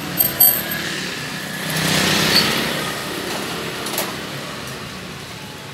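A few sharp metal clinks with a short ringing just after the start, from the thread stand's nut, washer and bolt hardware being handled, and another click about four seconds in. Between them, a swell of engine-like noise rises and fades over steady background hum.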